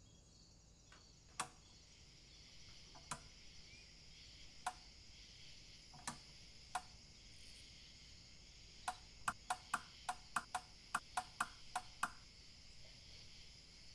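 A steady high chirring of night insects, with sharp clicks over it: single clicks a second or two apart, then a quick run of about a dozen at roughly four a second before stopping.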